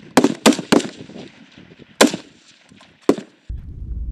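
M4 carbine firing 5.56 mm rounds in single shots: three quick shots, then two more about a second apart, each with a short ringing tail.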